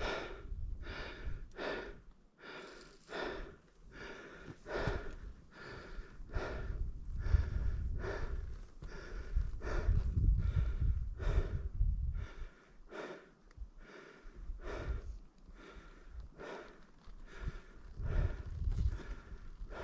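A person breathing hard and fast, about one and a half breaths a second, from the exertion of climbing a mountain path under a heavy backpack. A low rumble comes and goes underneath.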